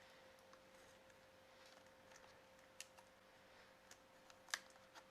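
Near silence with a few faint clicks and small handling noises of a plastic package being worked open, the sharpest a little under three seconds in and again past four and a half seconds.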